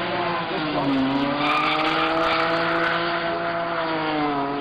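Drift car's engine held high in the revs, its pitch dipping briefly about a second in, with the rear tyres spinning and squealing as the car slides sideways.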